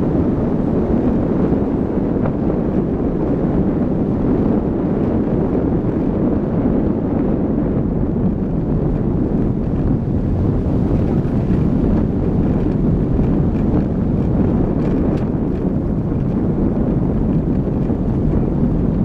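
Car driving along a gravel road, heard from a camera mounted outside the car: a steady rush of wind buffeting the microphone over the rumble of tyres on gravel.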